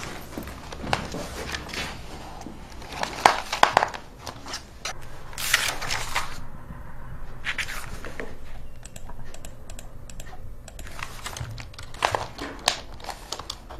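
Irregular clicks and rustling in a small room, with a cluster of sharp clicks a few seconds in, a louder rustle about halfway, and more clicks near the end.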